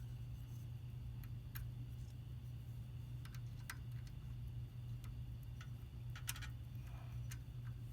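Scattered light metallic clicks and taps as motorcycle rear set parts (footpeg bracket and shift linkage) are handled and fitted by hand, a small flurry about six seconds in, over a steady low hum.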